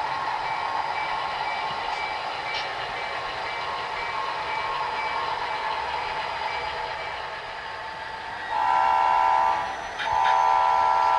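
Sound of an HO scale model diesel locomotive: a steady engine drone that slowly fades, then two long blasts of a multi-tone air horn. The first blast comes near the end and lasts over a second; the second follows a moment later and runs on.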